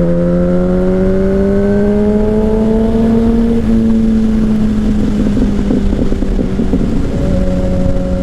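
Yamaha R1 sportbike's inline-four engine under way, its pitch rising steadily for about three and a half seconds as it pulls in gear, then turning rough and uneven as the throttle comes off, and settling into a steady, lower drone near the end, over a rumble of wind.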